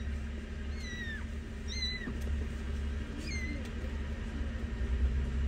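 Kittens mewing: four or so short, high-pitched mews spread over a few seconds, over a steady low hum.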